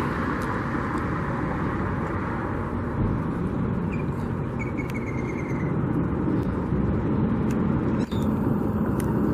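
Steady road traffic noise: cars and other vehicles driving past on a street.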